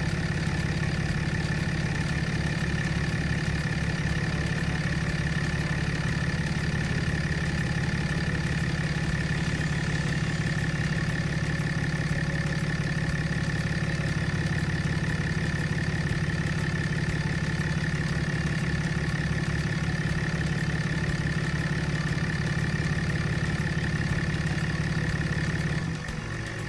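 A 6.7-litre Cummins inline-six turbo diesel in a Dodge Ram 2500 idles steadily while warming up to operating temperature after a water pump replacement. The sound drops and changes just before the end.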